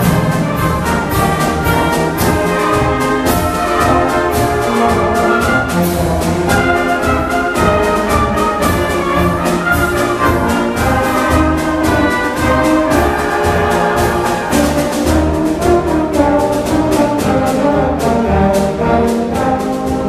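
Concert band playing a march, trumpets and saxophones over a steady marching beat in the low brass and percussion.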